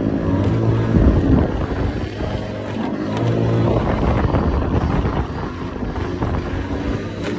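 Scooter engine running under way, its pitch rising and falling as the throttle changes, with wind noise on the microphone.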